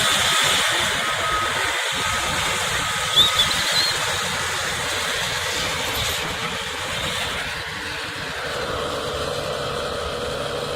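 Diesel engines of heavy earthmoving machinery (a Caterpillar excavator and bulldozer) running steadily, with a couple of brief high squeaks a little over three seconds in.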